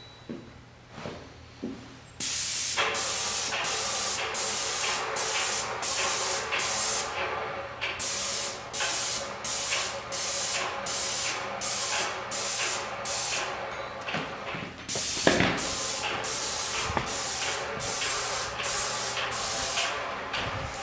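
Paint spray gun spraying primer onto cabinet doors in short passes: a hiss that starts and stops with each trigger pull, roughly two a second, beginning about two seconds in. A single loud thump about three quarters of the way through.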